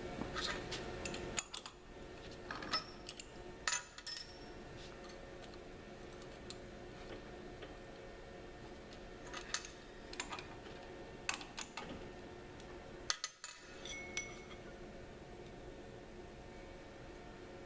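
Light metallic clinks and taps of small steel tools being handled at a drill press, a drill bit taken from the chuck and a tap fitted, coming in scattered clusters over a faint steady hum.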